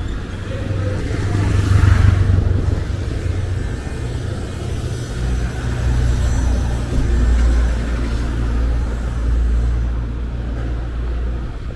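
Street traffic with car engines and tyres passing close by. A vehicle passes about two seconds in, and a steady low engine rumble follows from about halfway through.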